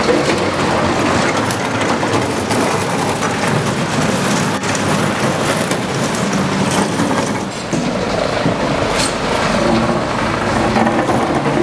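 Police armoured car with a front clearing blade, its engine running loudly as it shoves barricade debris along the street, with a few sharp knocks.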